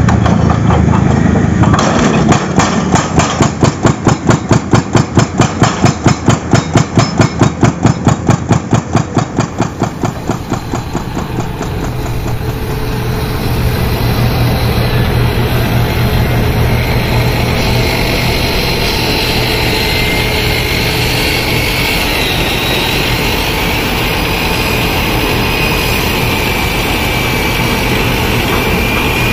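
Heavy construction machinery: a rapid, even pounding, about five blows a second, for roughly the first ten seconds, giving way to a steady engine drone.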